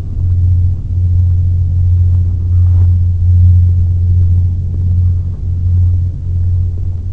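A loud, steady, deep hum of unknown origin, with a fainter higher hum over it, dipping slightly every second or so.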